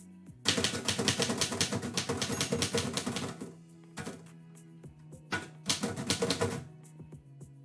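Typewriter keys striking rapidly: about three seconds of continuous typing, a pause, then a shorter burst of keystrokes, over quiet background music.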